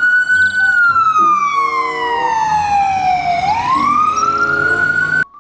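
Ambulance siren in wail mode. The pitch peaks about half a second in, falls slowly for nearly three seconds, then climbs again before cutting off suddenly near the end.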